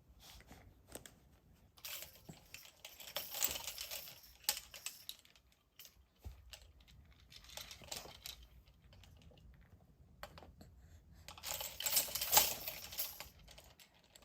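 Rapid small clicks and rustling in two spells, the first about two seconds in and the second near the end.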